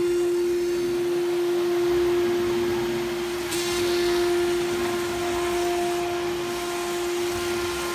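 CNC router spindle running with a steady, unbroken high-pitched whine over machine noise, and a short burst of hiss about three and a half seconds in.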